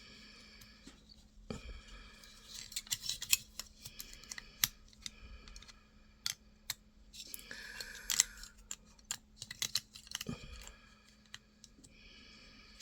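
Hard plastic model-kit parts clicking and tapping together as they are handled and test-fitted by hand, with some brief rustling.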